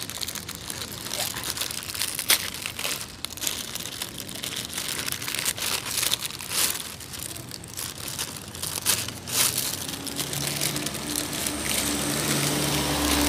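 Plastic courier pouch being crinkled and torn open by hand, a run of irregular crackling and crinkling. A low steady hum comes in near the end.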